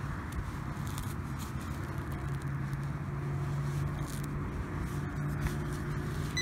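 Fingers sifting and crumbling a plug of loose soil, with a steady low hum underneath.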